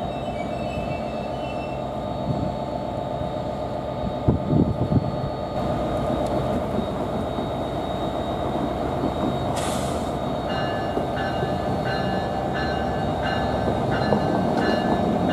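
NJ Transit commuter train approaching, a steady rumble of wheels on rail that grows slowly louder. From about ten seconds in, a bell rings at roughly two strikes a second.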